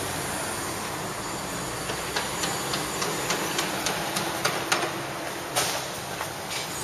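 City street traffic noise, a steady rush of passing vehicles. About two seconds in, a run of sharp ticks starts, roughly three a second, with the loudest one about five and a half seconds in.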